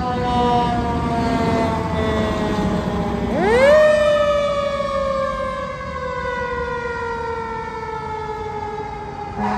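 Fire engine siren, its pitch slowly falling, then sweeping sharply up about three seconds in to its loudest and winding slowly down again over the following six seconds, over the low rumble of the truck's engine.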